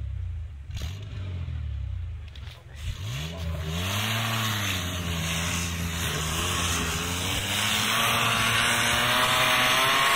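Off-road SUV's engine running low, then revving up hard about three seconds in and held at high revs with its pitch wavering as the wheels spin for grip in deep snow. A rising hiss of spinning mud-terrain tyres throwing snow joins in and grows louder near the end.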